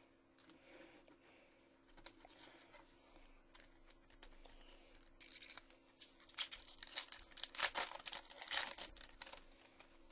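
Foil trading-card pack wrapper being torn open and crinkled by hand, in a run of sharp rips and crackles that grows loudest and densest in the second half.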